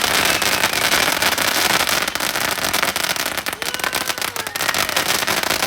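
A consumer firework going off in a dense run of crackling pops and bangs, set off the wrong way round. The crackle thins and drops a little in the middle, then picks up again near the end.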